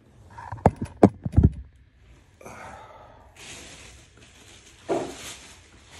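Packaging being handled while unboxing dumbbells: a few sharp knocks in the first second and a half, then a long rustle of plastic wrapping, with a thump about five seconds in.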